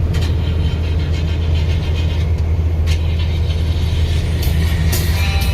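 Truck cab interior while driving through a strong storm: a steady, loud low rumble of engine and road noise with the wind pushing on the truck, and a run of sharp clicks near the end.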